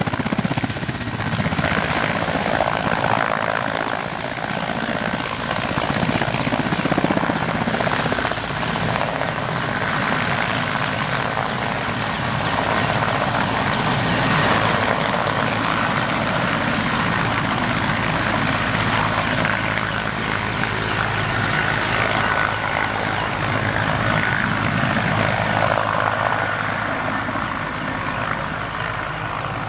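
Mi-8T helicopter's main rotor and twin TV2-117 turboshaft engines at takeoff power as it lifts off and climbs away. The sound stays loud and steady, then grows slightly duller and fainter near the end as the helicopter draws off.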